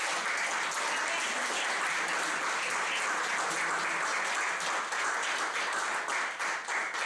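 Audience applauding: many hands clapping steadily, dying away right at the end.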